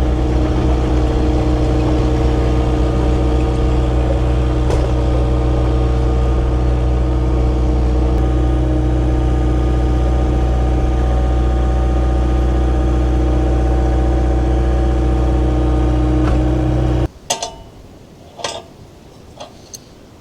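Wood-Mizer LX50 Super sawmill's engine running at a steady speed with no change in pitch. It stops abruptly about 17 seconds in, and a few light knocks follow.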